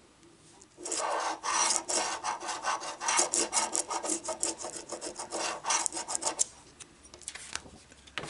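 A metal token scratching the coating off a scratch-off lottery ticket: rapid rasping strokes that start about a second in and thin out to a few strokes near the end.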